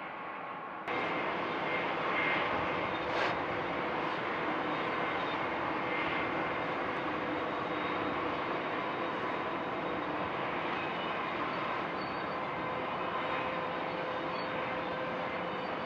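Quieter rolling of tank cars gives way about a second in to several BNSF diesel locomotives passing in a row: a steady engine drone with a few held tones. A single clank stands out about three seconds in.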